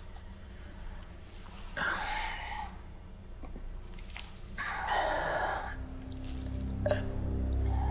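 Two long, heavy breaths or sighs, about three seconds apart, over faint computer-keyboard clicks. A low, steady music drone fades in near the end.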